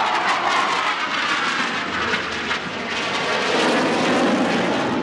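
Jet noise from an Alenia Aermacchi M-346 jet trainer's twin turbofan engines as it flies a display turn overhead, the pitch sliding down early on and rising again near the end.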